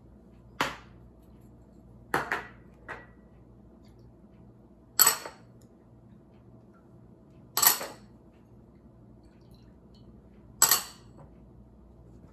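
Small glass prep bowls clinking against a glass mixing bowl as sauce ingredients are tipped in. About half a dozen short, sharp clinks come every couple of seconds.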